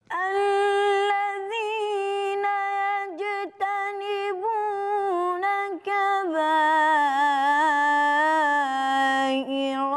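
A boy's high, unaccompanied voice reciting the Quran in melodic chant: long held notes with ornamented turns, broken by short pauses between phrases, moving to a lower pitch about six seconds in.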